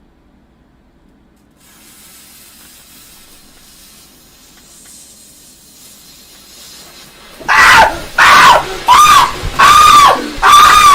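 Lit firework hissing faintly after its fuse catches. About seven and a half seconds in it starts giving loud, shrill squealing whistles, each about half a second long, repeating evenly at about one a second at the same pitch.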